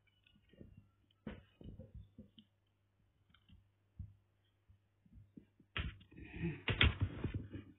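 Scattered soft clicks and knocks, then a louder crackling, rustling stretch about six seconds in, over a faint steady low hum.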